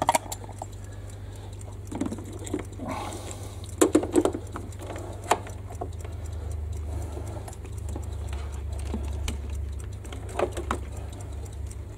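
Lister HA4 diesel generator running steadily under the house load, a low drone in the background. Scattered clicks and knocks from handling at the switchgear, loudest about four and five seconds in.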